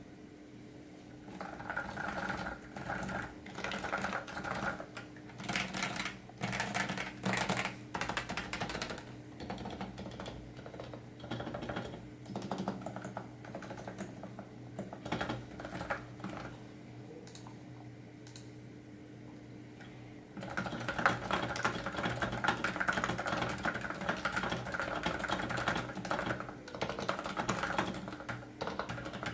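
Typing on a Topre Realforce RGB keyboard with original ABS keycaps, most of its keys fitted with Silence-X rings that mute the upstroke. Keystrokes come in bursts, thin out to a few scattered keys and a short pause past the middle, then run on as steady fast typing for the last third.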